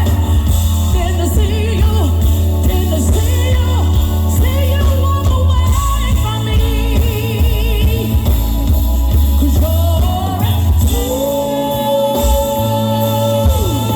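Pop-style music with a singer over a heavy bass line, played through a concert sound system. Near the end the singer holds one long note.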